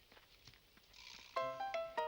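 Background cartoon music: quiet for about a second, then a light melody of short plucked notes begins about one and a half seconds in.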